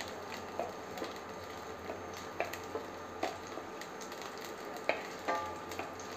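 Chopped garlic frying in oil in a stainless steel pan, a steady sizzle, with a wooden spatula stirring and scraping against the pan a few times.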